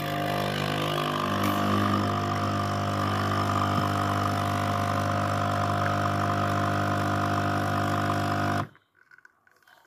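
Krups Nespresso capsule machine's pump humming steadily as it brews an espresso, cutting off sharply near the end when the shot is done.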